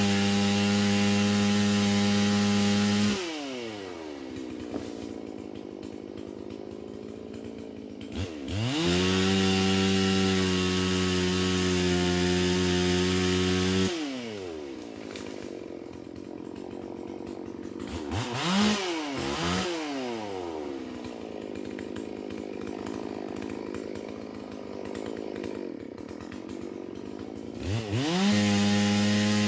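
Holzfforma G444 two-stroke chainsaw, a clone of the Stihl MS440, revved to full throttle three times for a few seconds each, holding a steady pitch, then dropping back to idle between, with two quick throttle blips in the middle.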